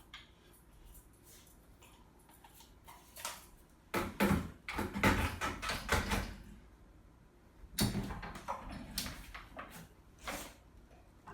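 Two bouts of knocking and rattling from handling the pressure washer's plastic and metal parts during assembly, the first about four seconds in and the second about eight seconds in.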